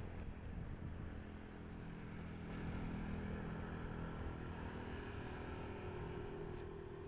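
Distant engine drone, a steady low hum that swells a little about three seconds in, heard across an open airfield.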